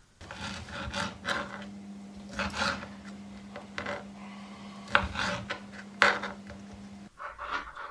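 Knife cutting sausage on a plastic cutting board: irregular scraping and chopping strokes. A low steady hum runs underneath and stops near the end.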